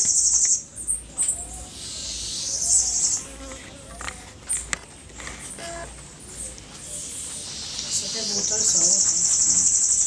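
An insect's high-pitched, buzzing trill comes in three stretches: one cuts off about half a second in, a short one comes around two to three seconds in, and a longer one swells in near the end.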